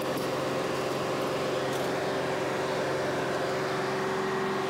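Steady drone of ship engine-room machinery: a dense even noise with a few level hum tones, and a couple of faint clicks in the first two seconds.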